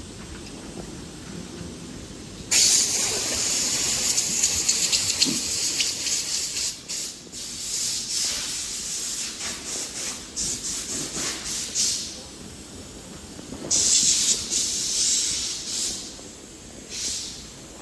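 Cleaning spray nozzle hissing in repeated bursts, switched on and off: a long choppy stretch starting a few seconds in, a pause, then a second burst and a short third one near the end.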